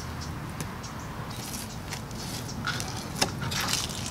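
A sea robin being cleaned with a fillet knife on a wooden table: a run of short scraping and cutting sounds from the blade and the fish's skin and flesh, with a sharp click about three seconds in.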